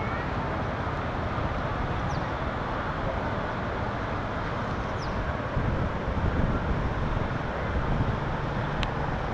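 Wind buffeting the microphone over a steady outdoor rushing noise, gusting harder in the second half. A few faint, short, high falling chirps come through three times.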